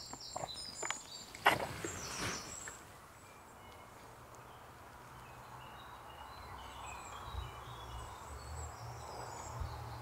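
Birds singing in short, high chirps over a low steady hum. In the first few seconds a plastic water bottle is drunk from and handled, with a few knocks.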